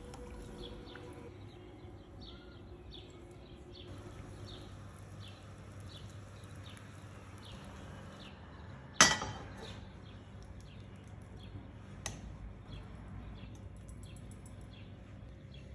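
Small bird chirping repeatedly in the background, about twice a second. About nine seconds in comes one loud, sharp metallic clack with a short ringing tail, and a smaller click about three seconds later.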